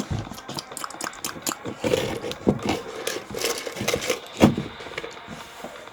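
Plastic fidget toys being rummaged through and handled in a container: a string of small clicks, knocks and scrapes.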